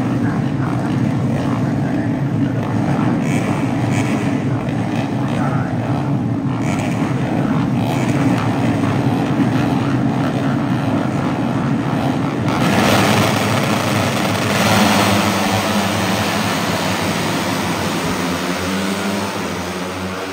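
Moto3 racing motorcycles' 250 cc single-cylinder four-stroke engines running, a steady dense drone. About twelve seconds in a louder, hissier sound joins, and near the end the sound sweeps in pitch as it passes.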